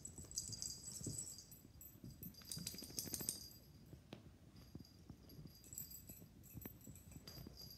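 Pet collar tags jingling in several short bursts, with soft thumps and scuffles of paws on carpet as the animals play.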